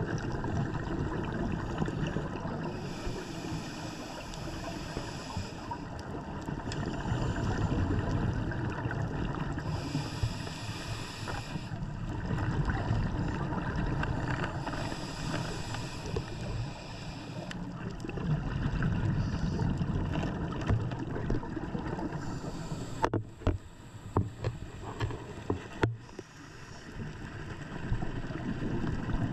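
Underwater sound of a scuba diver breathing through a regulator: a steady low rumble, with exhaled bubbles rushing out in hissing surges every five to six seconds. Several sharp knocks come near the end.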